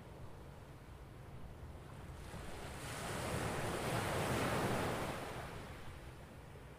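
Sea waves washing on a beach: a soft rush of surf that swells about two seconds in, peaks near the middle, and fades away again.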